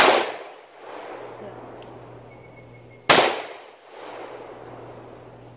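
Two 9 mm pistol shots about three seconds apart, each loud and sharp with a long echo fading away after it.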